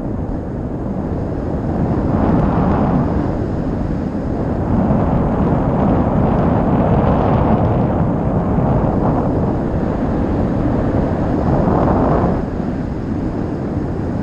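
Airflow of a paraglider in flight buffeting the camera microphone: a loud, low rushing noise that swells and eases in gusts every few seconds.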